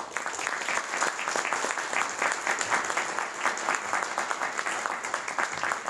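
Audience applauding steadily, dense clapping of many hands welcoming a speaker to the podium.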